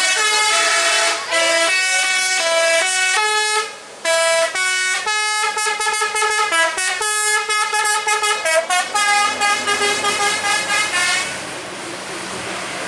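Bus telolet horn (a Basuri multi-tone musical air horn) playing a quick melody of stepped notes, with a brief break about four seconds in. Near the end the tune stops and a steady rush of vehicle noise is left.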